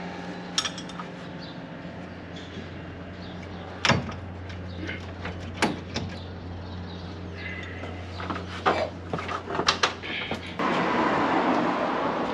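Scattered metal clicks and clanks from a wrench, sprocket and roller chain being handled on a combine's auger drive, over a steady low hum. The clanks cluster near the end, then a louder, even rushing noise comes in suddenly.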